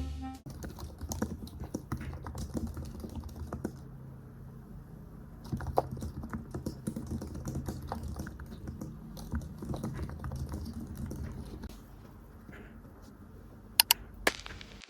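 Rapid, irregular light clicking and tapping for about twelve seconds, then quieter, with two sharp clicks near the end.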